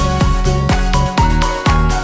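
Upbeat electronic background music with a steady beat, about two beats a second, over held synth notes and a bass line.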